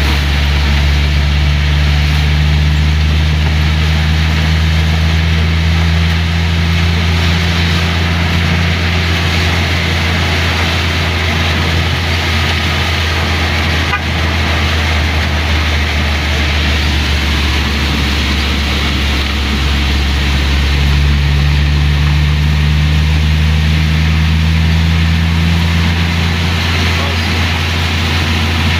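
Engine of a 1970s Mitsubishi Colt heard from inside the cab while driving, a steady low drone whose note rises for a while at the start and again later on. Heavy rain and tyre hiss from the wet road run under it.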